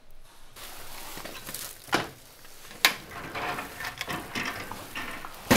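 Aluminium-framed glass sliding door being slid along its track by hand, with a steady rolling noise, sharp clacks about two and three seconds in, and a loud knock near the end.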